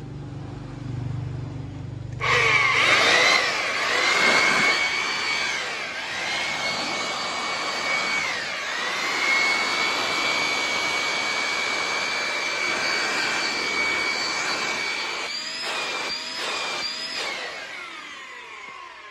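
Hitachi RB40SA electric blower switched on about two seconds in, running with a high whine over a rush of air. Its pitch dips briefly a couple of times and wavers several times near the end, then it spins down as it is switched off.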